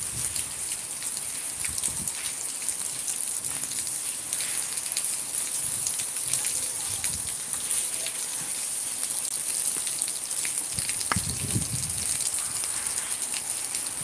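Steady rainfall, an even hiss of drops on wet ground. A single knock comes about eleven seconds in.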